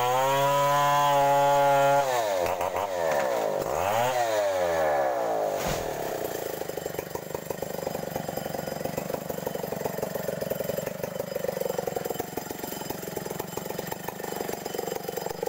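Two-stroke chainsaw revving up to a steady high pitch. About two seconds in it drops and climbs twice, then runs lower and rougher as it cuts through a felled coconut palm trunk.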